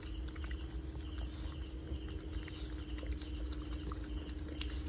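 Labrador puppy eating from a bowl: many small scattered clicks of food and tongue against the bowl, over a steady low hum and faint insect chirping.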